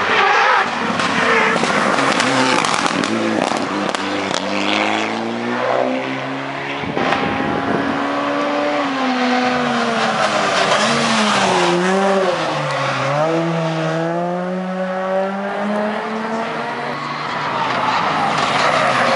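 Rally cars' engines revving hard as they come up the stage one after another, the pitch climbing and falling again and again with the gear changes. About twelve seconds in the note drops steeply and then climbs again.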